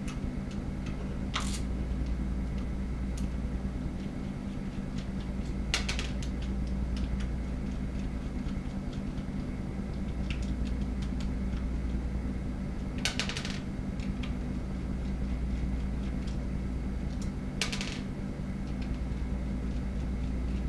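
A steady low electrical hum with a few sharp clicks and clatters, four louder ones spread through, of hard plastic parts and hand tools being handled on a table.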